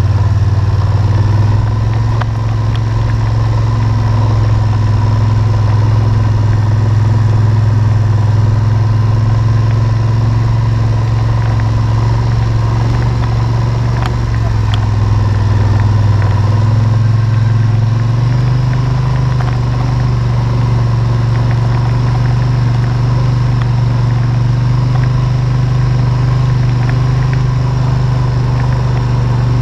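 ATV engine running at a steady speed, its note stepping up slightly in pitch about eighteen seconds in.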